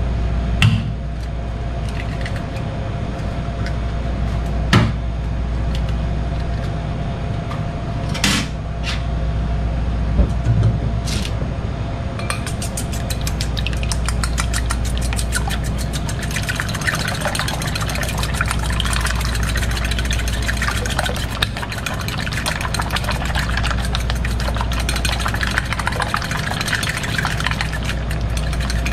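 Eggs knocked sharply on a stainless steel bowl a few times, then a fork whisking them fast, clicking against the steel bowl from about twelve seconds in. A steady low hum runs underneath.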